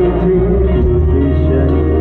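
Live music from an Isan (northeastern Thai) band's stage show, played loud through a large PA and heard from within the audience. Heavy steady bass runs under a held melody line.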